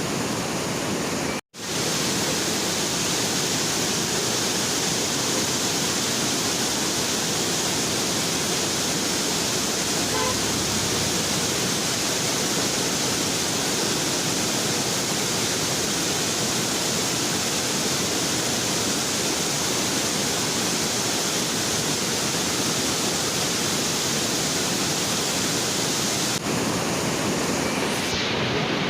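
Steady rush of water pouring through the dam, an even roar that cuts out for an instant about a second and a half in.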